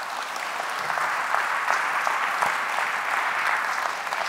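Audience applauding: a dense clapping that swells over the first second and starts to thin near the end.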